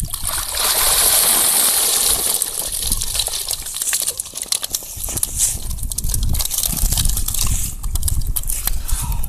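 A keepnet full of carp being hauled out of a pond: water gushes out of the mesh for the first few seconds, then drips and patters off it, with scattered knocks and clicks as the net and fish are handled.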